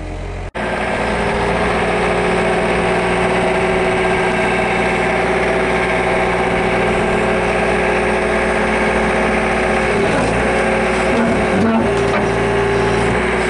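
A heavy loader's engine running steadily while its arm lifts the side of a pickup truck off the ground, with a slight change in pitch near the end.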